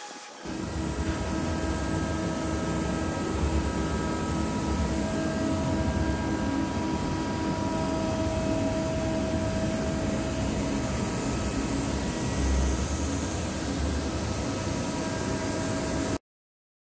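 A UDM-2216 three-axis CNC machining center running, with steady whining tones over a low rumble and hiss. The sound cuts off suddenly near the end.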